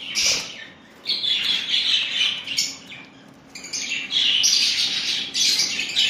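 Budgerigars chattering, a dense scratchy warble that comes in stretches with two short lulls in the first half.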